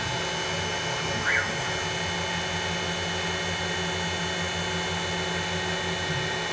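Grizzly G0704 benchtop CNC mill milling aluminum with an end mill under coolant spray: a steady spindle and cutting sound with a pulsing low hum and a hiss. A short rising-and-falling whine comes about a second in.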